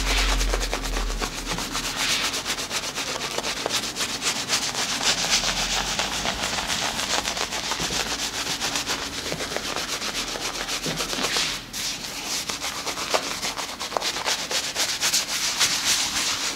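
Shaving lather being rubbed briskly over a bald scalp, a fast, dense scratchy rubbing with a short break a little past the middle, stopping abruptly at the end.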